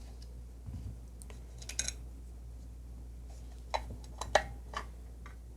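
Light clicks and taps of a screwdriver and small parts handled against an effects pedal's casing during disassembly: a brief cluster about two seconds in, then a run of sharper clicks around four seconds in, the loudest of them then.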